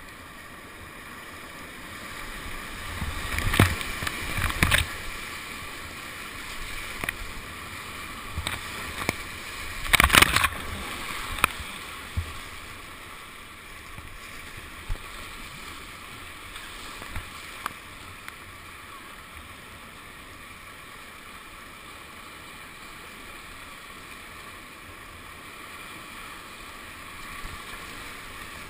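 Whitewater rapid rushing steadily around a kayak, with sharp splashes from paddle strokes and waves hitting the boat, the loudest about three and a half, five and ten seconds in.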